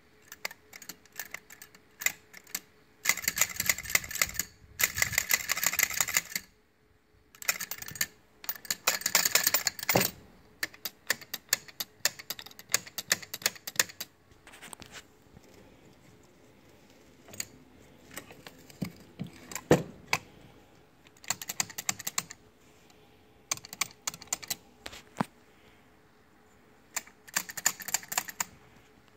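Bursts of rapid, sharp clicking and light rattling from a rebuilt Quadrajet carburetor and its small metal parts being handled on a wooden bench. The two densest bursts come in the first third, then sparser clicks, with another short burst near the end.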